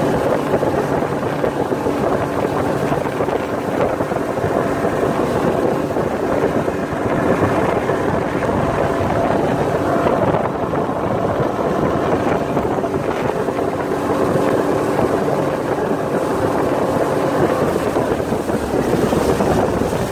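Boat's outboard motor running steadily under way, with wind on the microphone.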